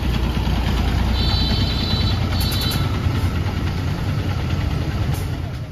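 City bus engine running at the stop with a steady low rumble. Two brief high-pitched tones sound between about one and three seconds in.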